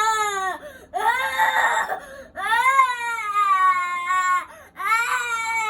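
Baby crying hard: four loud wails with short gasps between, the second harsh and strained, the third held for about two seconds.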